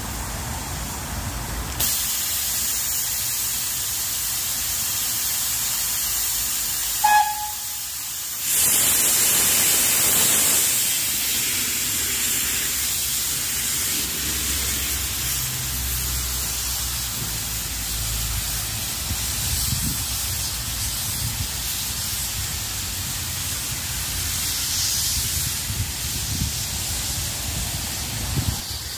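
Brookes No. 1, an 0-6-0 saddle-tank steam locomotive, blowing off steam with a loud hiss that starts suddenly about two seconds in. A short high whistle toot comes about seven seconds in. A louder burst of hiss follows as the engine moves off, steam venting low from the cylinder drain cocks.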